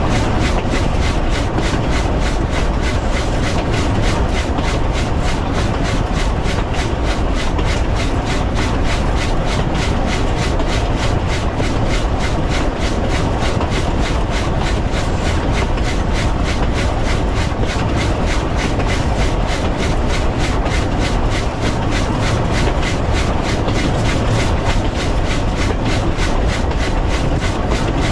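W class steam locomotive running along the line, its exhaust beating in a quick, even rhythm over the steady rumble of wheels on rail.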